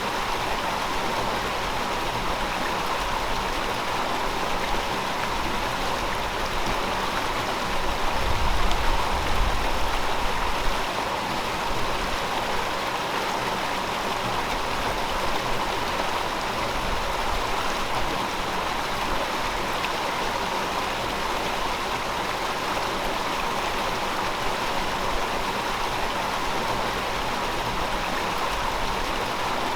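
River water flowing steadily over rocks, an even rushing hiss. A low rumble swells for a few seconds about eight seconds in.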